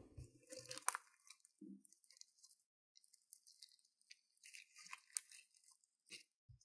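Glitter slime with foam beads being squeezed, stretched and folded by hand: faint, scattered crackling and sticky popping clicks.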